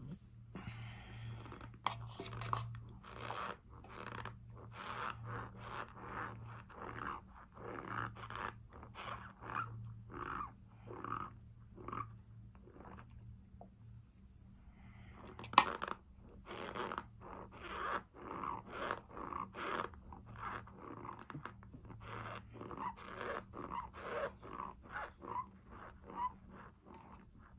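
Close-miked chewing of a mouthful of Argo cornstarch powder: a run of short, crunchy chews about two a second. The chewing pauses briefly near the middle, and there is one sharp click a little past halfway.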